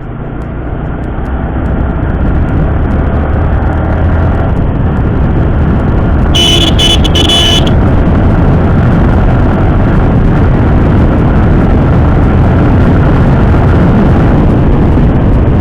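Yamaha R15 single-cylinder motorcycle under way, the engine and the wind rush at the microphone growing louder over the first couple of seconds as it picks up speed, then holding steady. A vehicle horn gives a few short toots about six and a half seconds in.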